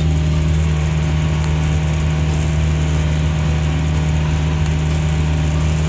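Vehicle engine running steadily while driving, heard inside the cabin as a constant low drone.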